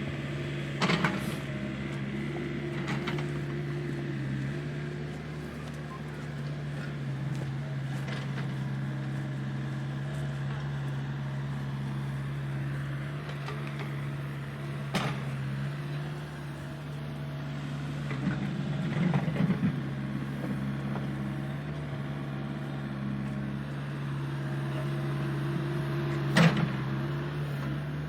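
Excavator's diesel engine running steadily, with scattered sharp knocks from the working machine, about half a dozen, the loudest near the end.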